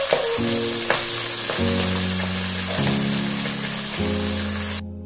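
Chopped onions sizzling and bubbling in hot oil in a pot, with a splash of water just added to keep them from burning. The sizzle cuts off abruptly near the end. Background music with held notes that change about once a second plays over it.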